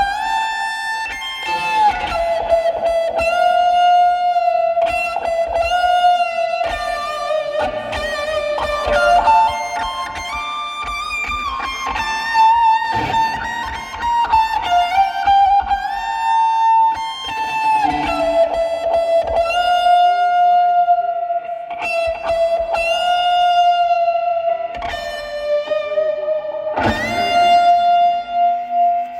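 Instrumental music played live: a guitar lead melody of long sustained notes that slide between pitches, with effects on the tone.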